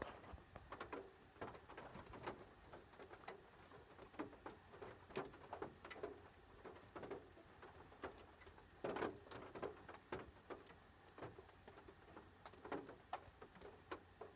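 Quiet patter: scattered light taps, unevenly spaced, of rain on a car's roof and windows, over a faint low hum.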